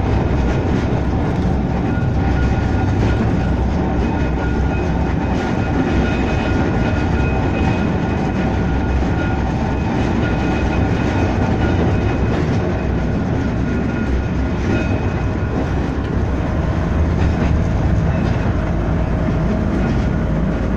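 Blackpool tram no. 715 running along its track, heard from inside the passenger saloon: a steady rumble of wheels on rail with a faint high whine running through it.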